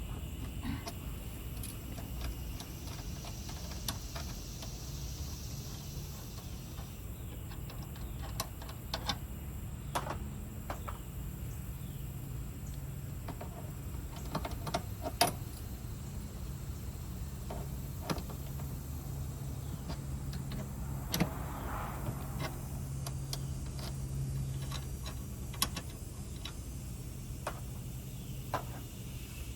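Scattered clicks, clinks and taps of metal hand tools and refrigerant fittings being handled and fitted, over a steady low hum.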